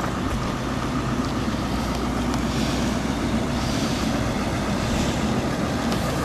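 Engine of a box-body truck running at low speed close by: a steady low rumble.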